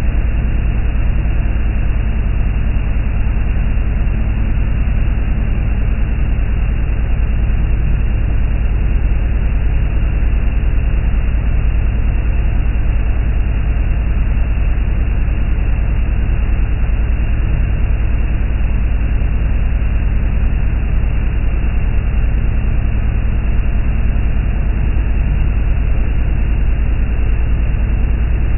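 Motorboat running fast across open water: a steady engine drone under the rushing spray of its wake, with heavy wind rumble on the microphone.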